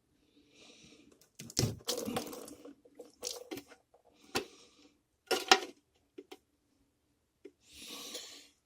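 Sink drain fittings being disconnected from the bottom of a sink: irregular knocks, clatters and scrapes of pipe parts, with a short rasping rub near the start and again near the end.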